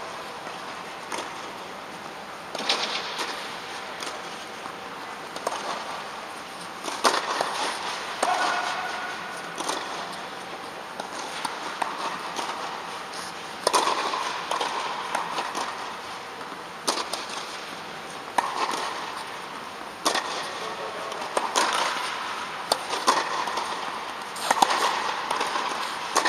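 Tennis rackets striking the ball during a rally, a sharp pock every second or two, each one echoing briefly under the inflated dome.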